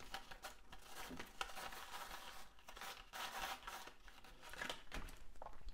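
Cardstock rustling and scraping as a folded card base is handled and turned in the hands, with many small clicks of paper against paper.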